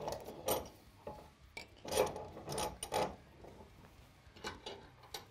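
A stubborn screw being turned out of a Winchester Model 190's aluminum receiver: a handful of short scraping, rasping strokes spread through the few seconds, the last turns resisting.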